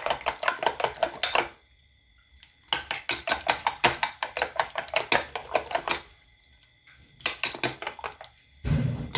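Metal spoon beating raw eggs with chopped tomato and onion in a ceramic bowl: rapid clicking of the spoon against the bowl in three bouts, with short pauses between them, and a dull bump near the end.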